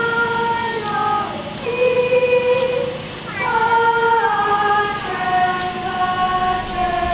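Children's choir singing long, held notes, with the voices moving to new pitches together about a second and a half in and again a little after three seconds.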